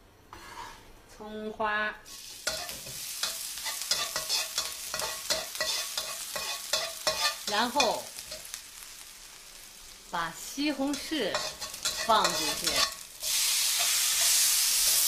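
Chopped scallions sizzling in hot oil in a wok, stirred and scraped with a metal spatula in quick, irregular strokes. About 13 seconds in, diced tomatoes go into the wok and the sizzle jumps to a loud, steady hiss.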